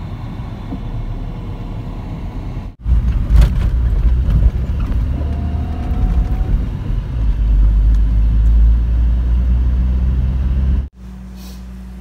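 Low rumble of distant traffic, then after about three seconds a much louder, deeper rumble of road and engine noise from a car driving along a city road. It cuts off suddenly about a second before the end.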